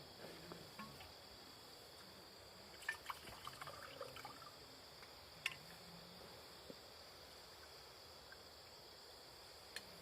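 Faint insect chorus, crickets or similar, making a steady high-pitched hum, with a few small clicks and taps about three to five seconds in and once more near the end.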